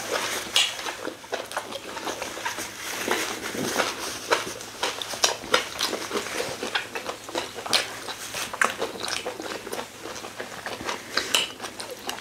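Two people chewing mouthfuls of fufu with slimy ogbono soup, a dense, irregular run of short wet mouth clicks and smacks.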